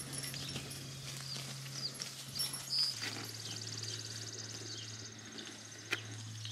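Pasture ambience around grazing beef cattle: short high bird chirps repeat throughout, a fast high trill joins about halfway, over a steady low hum. A single sharp click comes near the end.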